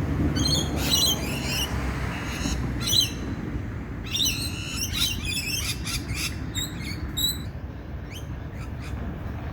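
Several birds chirping and calling in quick, repeated high notes and short trills, busiest in the first seven seconds and sparser near the end, over a steady low rumble.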